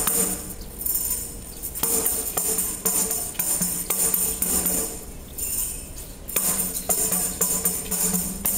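Ribboned praise tambourine's metal jingles shaken and struck in rhythmic bursts, a few each second, with sustained musical notes underneath.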